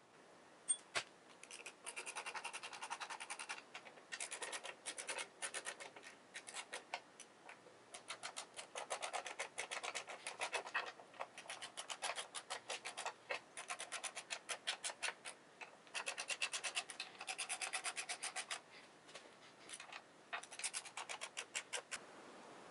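Rapid, even clicking in bursts of one to two seconds with short pauses between them, from hand work at the front of the engine.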